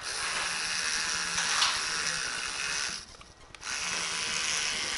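Electric toothbrush buzzing as its spinning head scrubs the corroded pins of a round multi-pin connector, cleaning the corrosion off the contacts. It stops briefly about three seconds in, then starts again.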